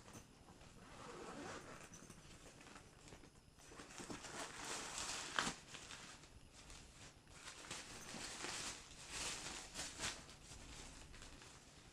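A nylon camera backpack being unzipped and handled: zipper pulls and rustling fabric in irregular stretches, with a sharp click about five seconds in.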